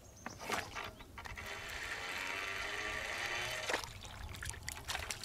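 Water splashing and trickling as a small bream is drawn out of the river, with a few handling clicks and a sharp click near the end of the splashing.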